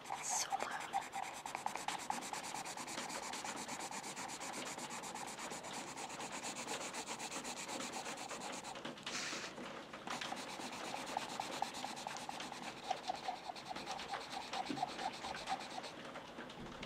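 Pencil scratching back and forth on paper in quick, continuous strokes.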